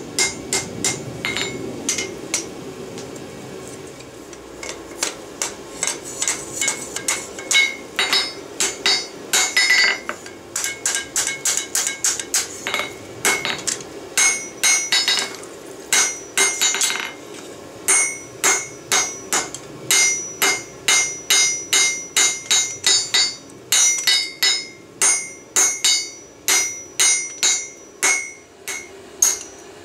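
Hand hammer striking red-hot steel on a Peddinghaus anvil, blow after blow at about two a second, each strike ringing. The blows thin out and soften a few seconds in, then pick up again into a steady rhythm.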